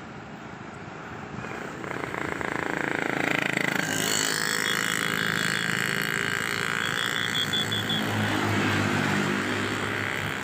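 A bus passing close with its engine running. The noise swells about a second and a half in and stays loud, with a low engine note strongest near the end.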